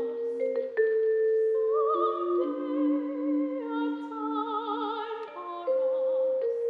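Soprano singing with vibrato over a vibraphone; struck mallet notes ring on and overlap, with new notes entering about a second in and again near the end.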